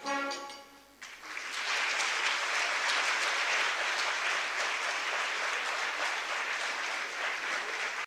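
Audience applauding steadily, beginning about a second in as the last held chord of the song fades out.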